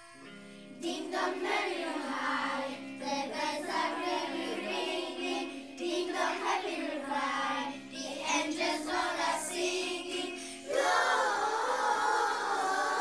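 A children's choir singing together in unison from song sheets over an instrumental accompaniment. The voices come in about a second in and grow louder and fuller near the end.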